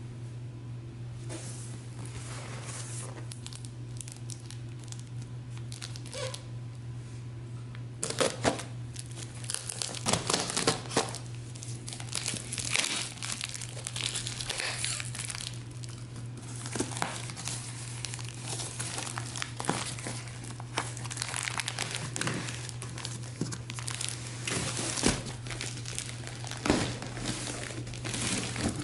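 Clear packing tape being peeled and ripped off a cardboard shipping box, then cardboard and a plastic bag crinkling as a plastic-wrapped comforter is pulled out. The ripping and crinkling start about eight seconds in and come in irregular bursts, over a steady low hum.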